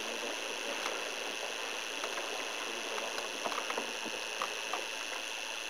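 Canoe paddles dipping into calm water, with faint drips and small splashes over a steady hiss.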